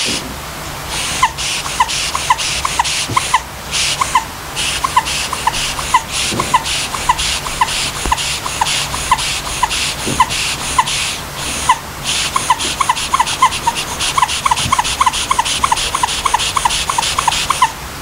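A pink rubber squeaky dog toy squeezed over and over, giving short, high chirping squeaks about two or three a second, with a rhythmic hiss around them. The squeaks come faster in the last few seconds, with brief pauses near the start, about four seconds in and about twelve seconds in.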